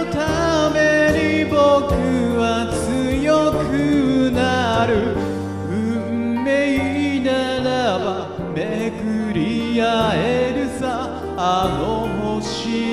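A man singing a slow pop ballad in Japanese over a karaoke backing track, holding and bending long notes with vibrato.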